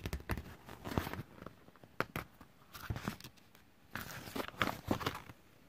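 Paper pages of a picture book being handled and turned by hand: a string of short papery rustles and taps, thickest about four seconds in as the page turns over.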